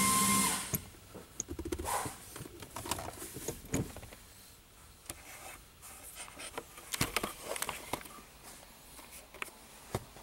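A steady hum with a high whine cuts off about half a second in. Scattered light clicks and knocks follow as the shifter and its surroundings are handled.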